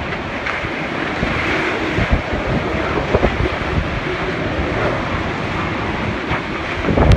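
Strong typhoon wind blowing hard and buffeting the microphone in a steady rushing noise, with low gusty thumps that come and go and a louder gust near the end.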